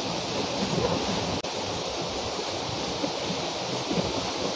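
Heavy rain pouring down, a steady rushing hiss.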